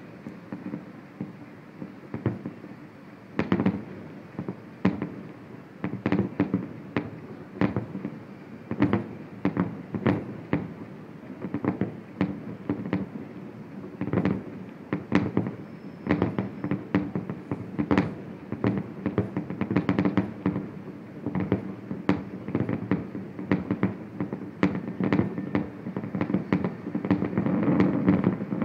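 Distant aerial fireworks display: an irregular string of sharp bangs and booms going off throughout, sometimes several a second, over a steady low background rumble.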